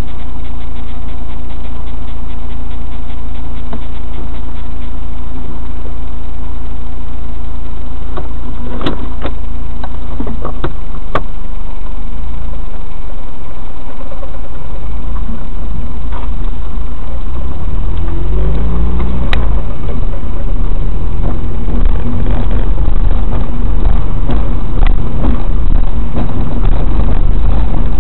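A car's engine and road rumble heard from inside the cabin through a dashboard camera, low and loud. A few sharp clicks come in the middle, and past the middle the engine note rises and the rumble grows as the car picks up a little speed.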